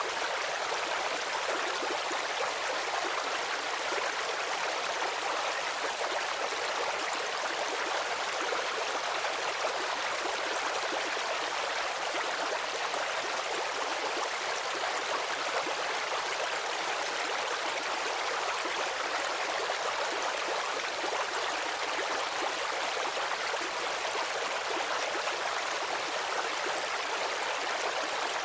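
Stream water running steadily over stones, an even rushing babble with no breaks.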